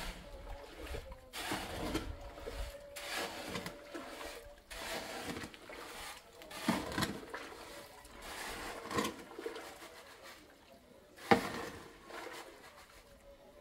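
Shovel scraping and turning wet cement mix in a metal mortar tray, a scrape every second or two, with one sharp knock of the shovel against the tray near the end.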